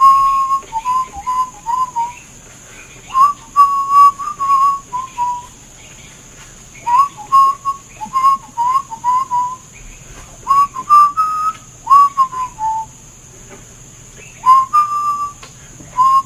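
A person whistling a tune in short phrases of a few notes, scooping up into some of them, with brief pauses between phrases.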